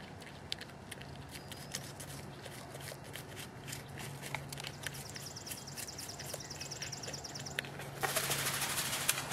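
North American porcupine chewing fruit and vegetables, a run of irregular crisp clicks and crunches. About eight seconds in, a loud rustling hiss lasts about a second.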